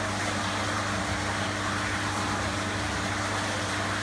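Steady electrical hum over an even hiss, unchanging throughout, from equipment running in the room.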